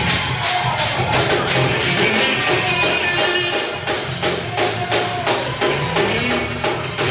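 Gospel praise-break music from a church band: drum kit and tambourine keep a fast, even beat of about five hits a second over a bass line and held notes.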